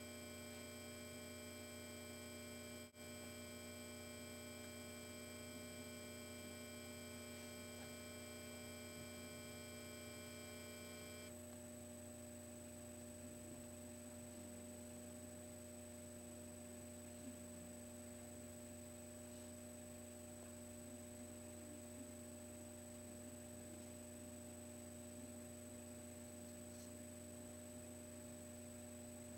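Faint, steady electrical hum, with a set of high, thin whines that cut off about eleven seconds in.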